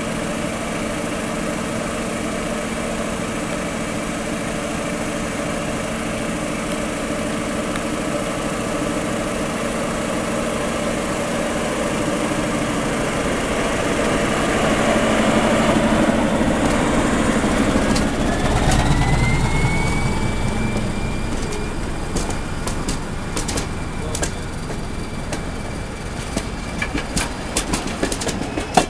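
SU42 diesel locomotive idling steadily, then its engine builds up as it pulls out with a train and passes close by, with a low rumble and a rising whine. Near the end the coach wheels clatter over the rail joints.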